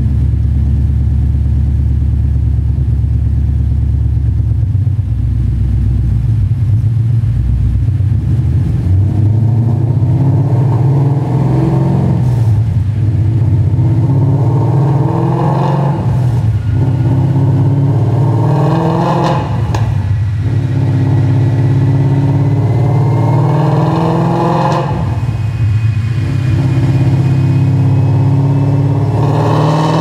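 2013 Ford Mustang GT's 5.0 V8 running through BBK headers, X-pipe and VariTune mufflers: it idles for a few seconds, then is revved again and again, the pitch sweeping up and falling back every few seconds.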